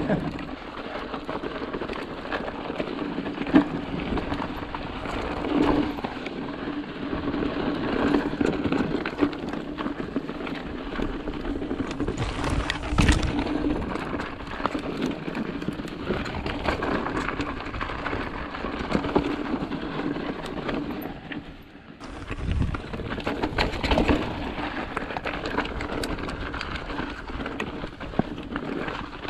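Mountain bike riding over rough, rocky dirt trail: tyres crunching and the bike rattling, with many small knocks and clicks over bumps. There is a brief lull a little after the middle.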